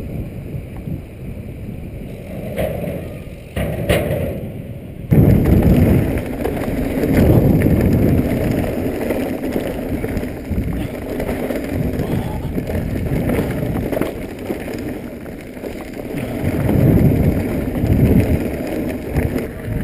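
Mountain bike riding with wind on the microphone: at first a moderate rumble of tyres on a smooth path. About five seconds in, a sudden jump to a louder, rougher rumble and rattle of the tyres and bike over a loose stony track.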